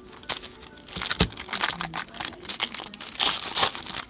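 Foil wrapper of a hockey card pack being torn open and crinkled by hand: a dense run of sharp crackles and rustles that starts about a third of a second in and gets busier after about a second.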